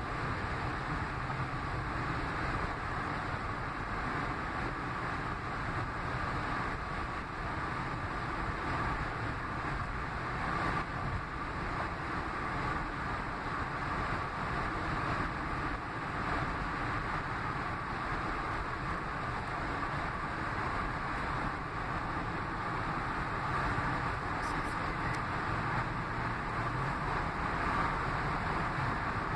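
Steady road noise of a car travelling at highway speed, heard from inside the cabin.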